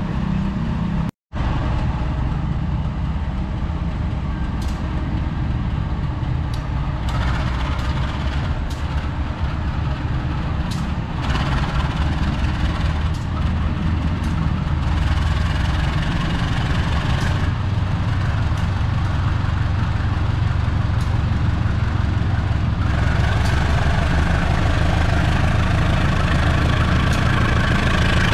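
Diesel locomotive of an Indonesian passenger train running with a steady low rumble as the train approaches, getting louder near the end. The sound cuts out for a moment about a second in.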